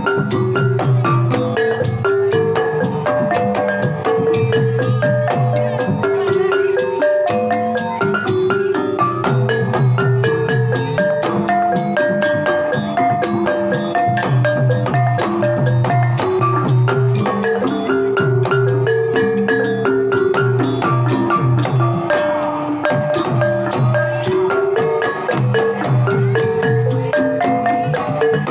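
A Banyumasan gamelan ensemble playing an instrumental passage. Mallet-struck melodic notes run over a low repeating bass pulse, with the kendang hand drum keeping the rhythm.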